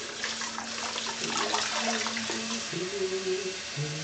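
Tap water running into a sudsy tub and splashing as a small pet is rinsed under it by hand, with low, held pitched tones in the second half.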